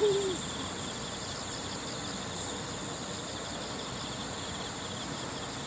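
Insects, crickets by the sound of it, chirping steadily outdoors: a fast pulsing trill with a steady high-pitched buzz above it.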